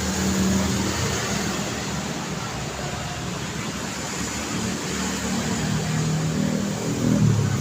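Busy road traffic: a steady roar of passing vehicles with engine hum, one vehicle coming closer and louder near the end.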